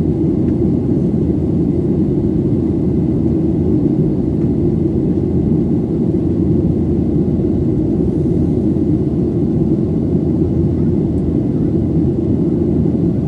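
Boeing 737-800 in flight, heard inside the passenger cabin: a steady low roar of engine and airflow noise from its CFM56 turbofans.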